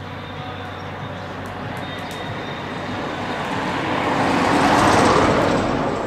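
A small car driving past on the road: its engine and tyre noise grows steadily, is loudest near the end, then starts to fade as it goes by.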